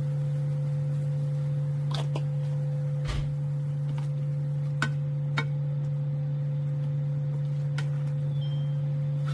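A steady, unwavering low hum with a few faint clicks over it.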